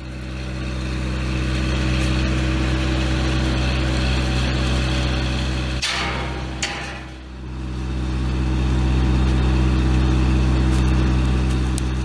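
A small engine running at a steady speed, a constant low hum that dips briefly about six to seven seconds in.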